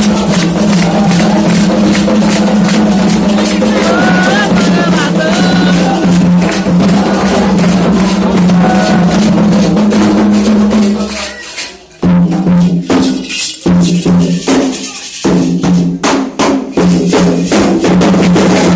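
Candomblé ritual percussion: atabaque hand drums with a struck bell or shaker playing a fast, dense rhythm, with voices singing over it in the first few seconds. About eleven seconds in the playing drops away, then returns as separate strokes with short gaps before the full rhythm picks up again near the end.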